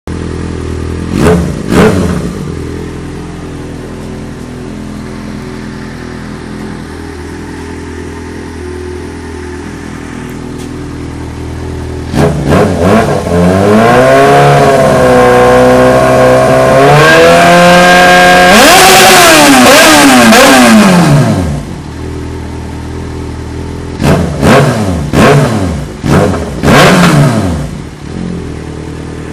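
Yamaha XJ6's inline-four engine through an aftermarket Jeskap exhaust, running loud: idling, two quick throttle blips at the start, then a long rev held high for about eight seconds before dropping back to idle, then a run of short sharp blips near the end.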